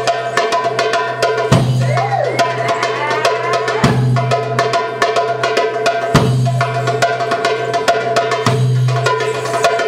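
Live Middle Eastern band music: a goblet drum (darbuka) plays a rhythm of deep strokes about every two seconds under quick sharp taps, over sustained accordion chords, with a short wavering melodic line about two seconds in.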